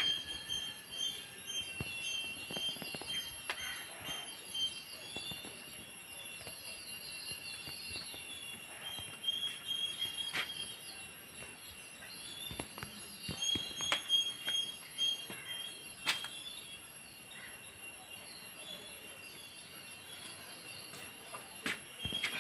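Steady high-pitched insect drone with a pulsing chirp, plus a few sharp clicks scattered through.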